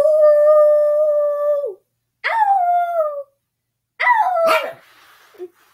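A person and a small dog howling together in long drawn-out howls. The first is held steady for about two seconds and drops at the end, the next is shorter and falls away, and about four seconds in the howls overlap with a sharp bark-like burst.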